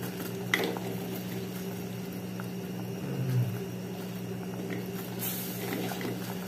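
Water boiling in a stainless steel pot of mussels over a steady low hum, with a few small wet squishes and clicks as cooked mussel shells are pried open by hand.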